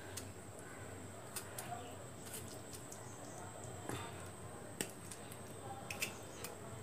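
A metal fork pricking whole amla (Indian gooseberries), the fruit turned in the fingers: faint, irregular clicks and scratches as the tines pierce the skin.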